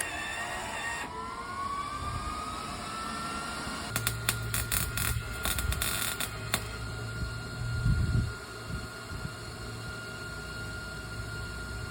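Millermatic 211 MIG welder welding a crack in a lawnmower shell: a steady high whine that rises in pitch over the first couple of seconds, with the arc crackling in short bursts from about four to six and a half seconds in.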